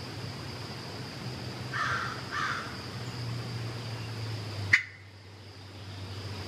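Quiet woodland: two short bird calls about two seconds in, over a steady high-pitched hum. A single sharp click a little under five seconds in is the loudest sound.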